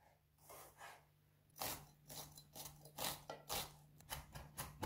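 Chef's knife chopping an onion on a wooden cutting board. A couple of soft cuts come first, then a run of knocks of the blade on the board from about a second and a half in, getting quicker to about five a second near the end.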